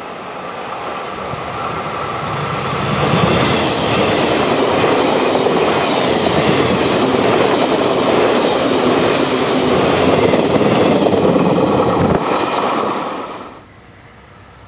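Cream-and-red limited express electric train passing close at speed: a steady rumble of wheels on rail with clattering over the rail joints. It builds over the first few seconds and cuts off shortly before the end.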